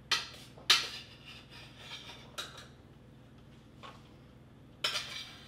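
Metal ladle clinking against a stainless steel saucepan and meal-prep bowls while black beans are scooped and served: a handful of short sharp clinks, the loudest within the first second and another near the end.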